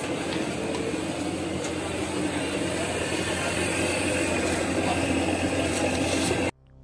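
Samosas deep-frying in a large karahi of hot oil: a steady sizzle of bubbling oil, with street and traffic noise underneath. It cuts off suddenly near the end.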